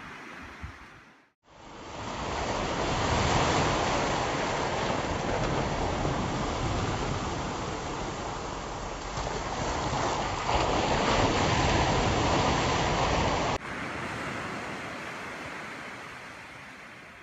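Sea waves surging and washing onto the shore, a steady rushing surf. About a second in the sound cuts out briefly. A loud stretch of close surf follows. Near the end it switches suddenly to quieter, more distant surf.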